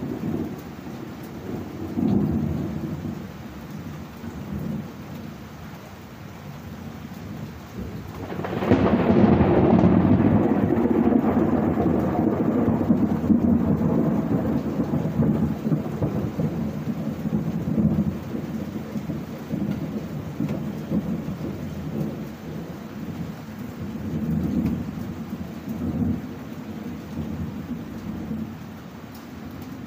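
Thunderstorm: rain falling with thunder rumbling throughout, and a loud thunderclap breaking about eight seconds in that rolls on for many seconds, fading slowly.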